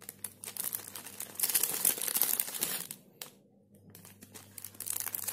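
Clear plastic packaging sleeve crinkling as makeup brushes are pulled and handled in it, in two spells with a short pause about three seconds in.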